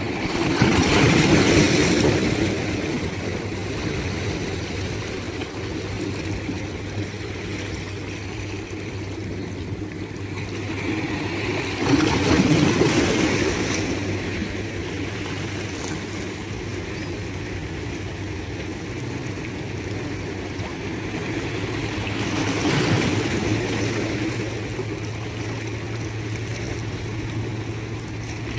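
Calm sea waves washing in, with a swell breaking three times, about eleven seconds apart, and a steady low hum underneath.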